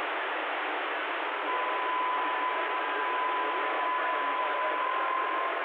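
Stryker CB radio's speaker hissing with static from an incoming carrier that has no voice on it. A steady whistling tone joins the static about a second and a half in.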